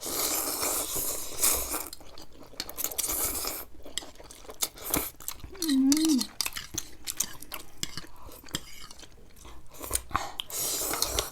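Close-miked eating of noodles: cutlery clicking and clinking against bowls, with chewing. There is a hissy stretch near the start and again near the end, and a short hum of the voice about six seconds in.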